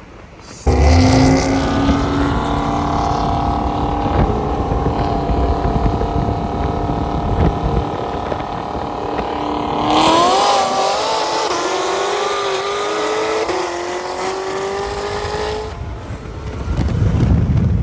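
Car engine running loud at high, steady revs, then pulling higher in pitch with a wavering rise, as a car accelerates hard in a street race.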